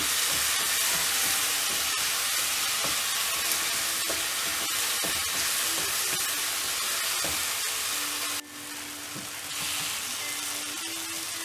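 Onion-tomato masala with coriander leaves sizzling in hot oil in a nonstick kadai, stirred with a wooden spatula that scrapes and pushes it around the pan. The sizzle drops quieter about eight seconds in.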